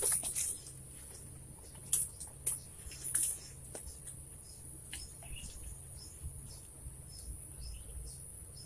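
A steady high-pitched buzz of insects, with short bird chirps scattered through it and a few sharp clicks in the first few seconds.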